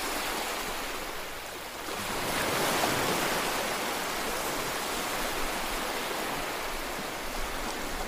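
Ocean surf washing on a beach: a steady hiss of waves that swells a little about two seconds in.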